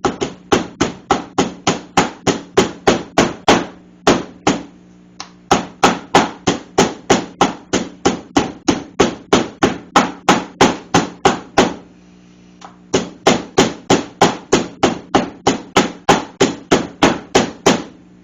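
A hand meat tenderizer pounding boneless pork on a cutting board to cube it. It strikes in rapid, even blows of about three to four a second, with two brief pauses.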